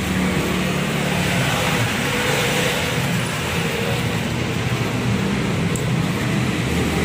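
Steady road traffic noise, with a low engine hum under it.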